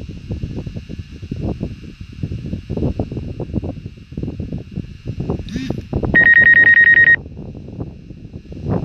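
Wind buffeting the microphone as an uneven low rumble, with a faint steady high whine under it. Just past the middle comes a short chirp, then a loud electronic alert tone, a fast-pulsing high beep, which sounds for about a second and cuts off sharply.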